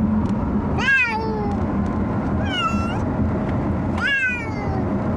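Pet cats in carriers meowing: three drawn-out meows about a second and a half apart, each rising then falling in pitch. The cats are complaining about the car ride, which they hate.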